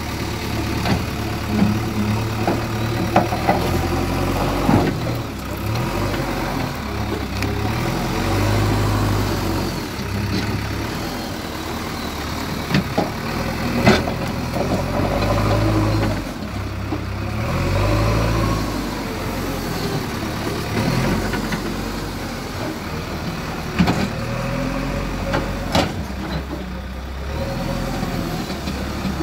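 JCB 3DX backhoe loader's diesel engine running under changing load as the operator works the hydraulics, its note rising and falling every second or two, with occasional sharp metallic knocks.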